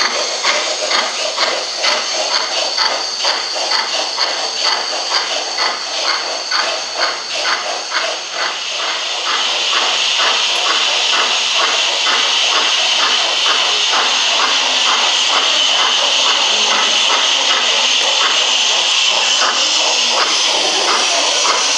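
Gauge 1 model BR 94 steam tank locomotives chuffing in a quick, even rhythm. About nine seconds in, a louder steady steam hiss rises and carries on, with the chuffs still faintly beneath it.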